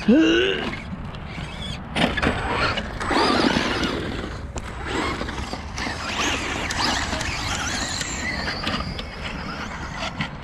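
Brushless Velineon motors of 2WD Traxxas Slash VXL RC trucks whining, rising and falling in pitch as the throttle comes on and off, with a sharp rising whine at the very start.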